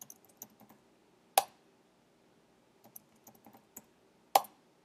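Typing on a computer keyboard: two short runs of light keystrokes, each ending in a single much sharper click.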